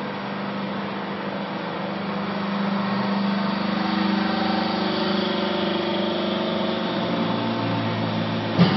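Hydraulic power unit of an NK30LT vertical clothes baler, electric motor and pump running with a steady hum that grows a little louder about three seconds in. A sharp knock near the end.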